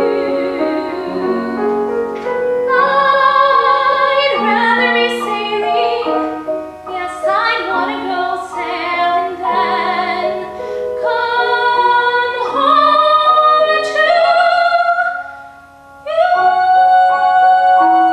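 A woman singing with grand piano accompaniment. Near the end she breaks off briefly, then holds a long note with vibrato.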